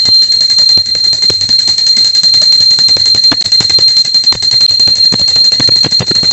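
Puja hand bell rung rapidly and without pause: a loud, steady, high ring, kept going by quick strikes of the clapper.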